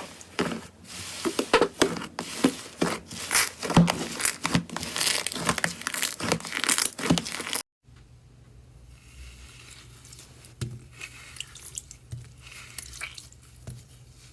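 Slime being squeezed and worked by hand: a dense run of loud wet crackles, pops and squishes that cuts off suddenly about halfway, followed by fainter squishes and clicks over a low steady hum.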